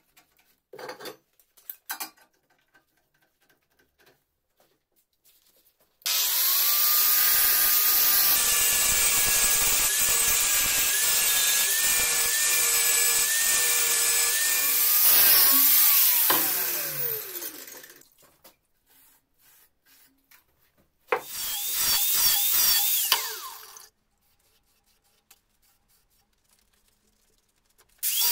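Angle grinder grinding the bevel into an N690 stainless steel knife blade. It spins up and grinds steadily for about ten seconds, then is switched off and winds down in a falling whine. A shorter grinding pass follows a few seconds later, and it starts again at the very end. A few small knocks of handling come at the start.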